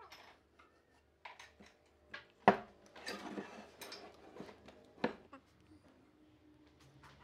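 A heavy squared wooden beam knocked against a wooden workbench as it is turned and set down, with one sharp knock about two and a half seconds in and another near five seconds, between them light scratching and small clicks of a marker working on the timber.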